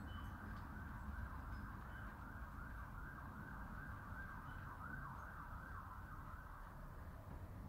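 Faint siren in a fast yelp, its pitch rising and falling about three times a second, dying away near the end, over a low steady rumble.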